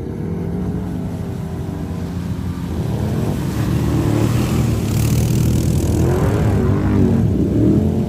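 ATV engines running and revving as the quads drive through deep mud and water, louder from about three seconds in as one comes close, with water and mud splashing around the wheels.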